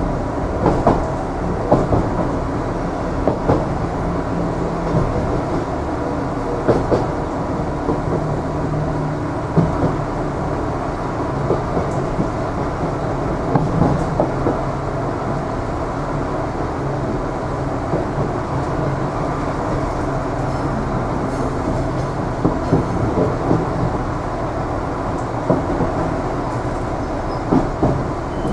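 Irish Rail 29000 class diesel multiple unit, heard from inside a passenger car while running: a steady rumble with scattered clicks of the wheels over rail joints.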